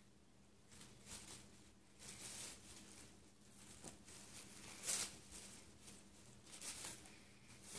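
Faint tissue paper rustling and crinkling in short irregular bursts as a Tibetan Spaniel tugs it out of a paper gift bag with its mouth, the loudest crinkle about five seconds in.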